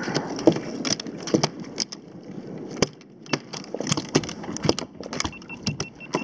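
Irregular clicks and knocks as a whitemouth croaker (corvina) is handled and shifts against the plastic hull of a sit-on-top kayak.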